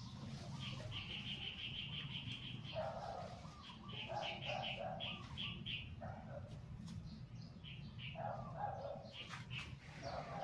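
Birds chirping: a fast run of high chirps early on, then shorter groups of chirps, with lower-pitched calls in between, over a steady low hum.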